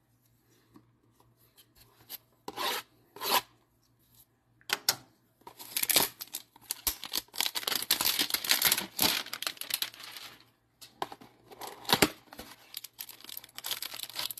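Cardboard hanger box of Topps baseball cards being torn open by hand: two short rips about two and a half seconds in, then a long stretch of tearing and ripping from about five seconds in, with more tearing near the end.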